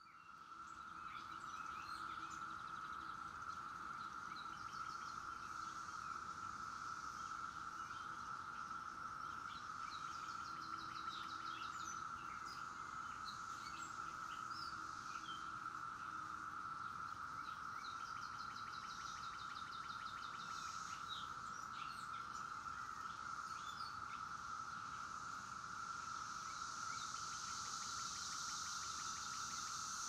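Chorus of Brood X 17-year periodical cicadas: a steady, unbroken drone that fades in at the start, with birds chirping over it.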